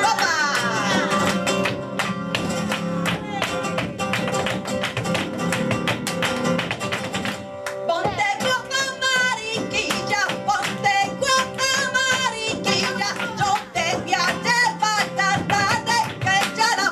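Live flamenco tangos: a flamenco guitar with dense sharp percussive clicks throughout, and a singer's wavering, ornamented voice coming in about halfway.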